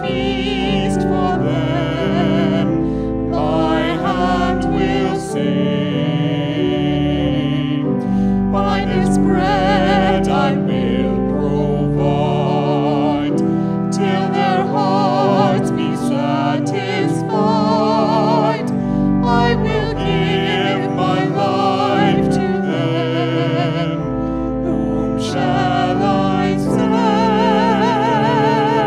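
A hymn sung over instrumental accompaniment, the voices wavering with vibrato on held notes.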